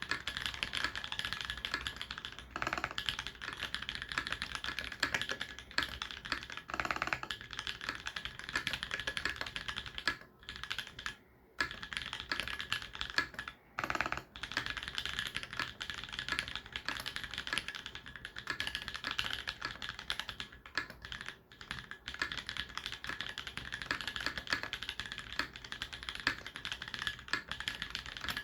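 Typing on a TX84 mechanical keyboard with Holy Panda tactile switches: a steady, dense run of key clacks, with a few brief pauses about ten to fifteen seconds in.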